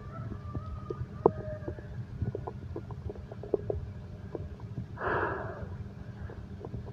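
Stomach growling: irregular small gurgles and pops over a low rumble, with brief squeaky tones in the first second and a half and a louder gurgling gush about five seconds in.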